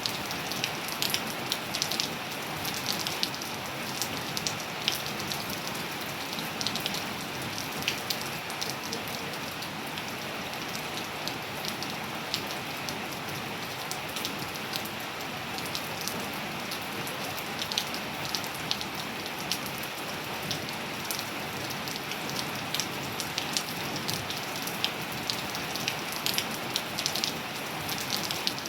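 Steady rain falling on surfaces: an even hiss with many crisp individual drop ticks and splats scattered through it.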